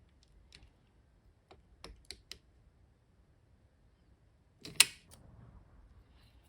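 A few light, scattered clicks and taps of small hard objects being handled, then one much louder sharp click a little before five seconds in, followed by a brief rustle.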